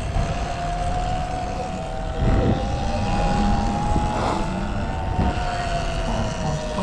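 Sur-Ron X electric motorbike's motor whining, its pitch rising slowly and then falling away as it slows, over wind rumble.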